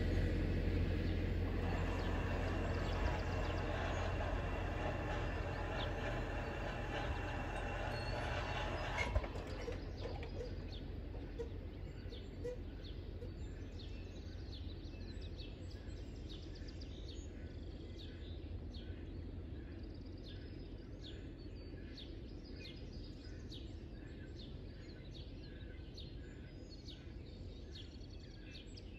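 Double-stack intermodal freight train passing over the crossing: a low rumble with a high metallic ringing from the wheels and rails, and the ringing stops about nine seconds in. The rumble then slowly fades away as the train recedes, with birds chirping about once a second.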